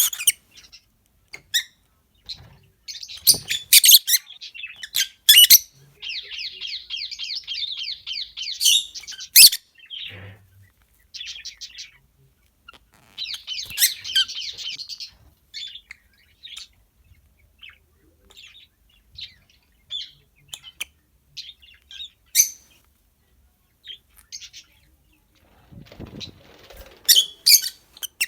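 Peach-faced lovebirds calling: sharp, shrill chirps scattered throughout, with two longer stretches of rapid buzzy chattering in the first half and sparser single calls after that.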